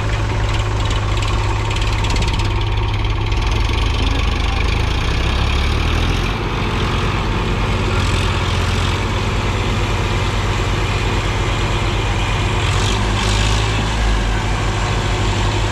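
Diesel tractor engines running hard under load in a steady low drone, the engine note shifting a few times as they work.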